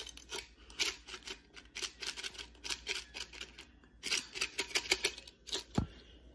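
Dry potato sticks rattling and pattering as they are shaken out of a can onto a hot dog: a fast, irregular run of small clicks, with a short break about two thirds through and a low thump near the end.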